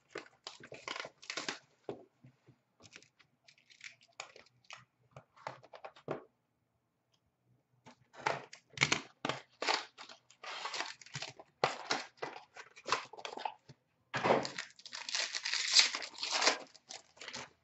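Hands tearing open a small cardboard 2018-19 Upper Deck SP Game Used hockey card box, then crinkling and ripping the plastic wrap off the card pack inside. It is a run of short rips, scrapes and crinkles with a pause about six seconds in, and a dense stretch of tearing and crinkling in the last few seconds.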